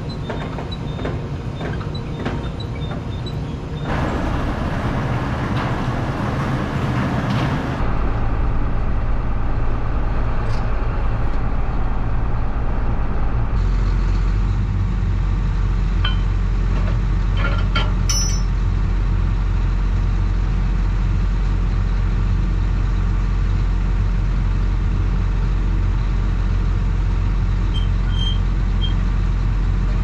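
A John Deere 8770 tractor's diesel engine idling with a steady low hum while a disc is hitched to it, with a few metallic clicks and clanks around the middle. The sound changes abruptly several times, with a few seconds of louder hissing noise near the start.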